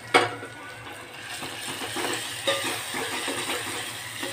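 A sharp clink, then a steel spoon stirring tomato masala in a metal pot, the mixture sizzling with small crackles and a knock of the spoon against the pot.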